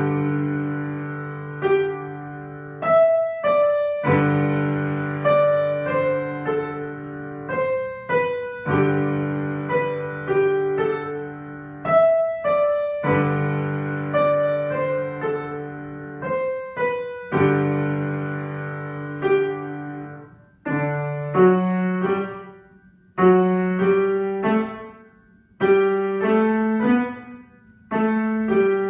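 Piano playing a slow piece: melody notes over sustained chords that ring and fade. About two-thirds of the way in, the playing turns to shorter, separated phrases with brief pauses between them.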